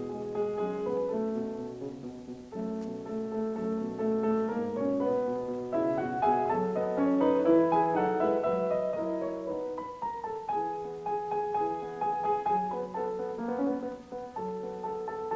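Background piano music, a melody of held notes.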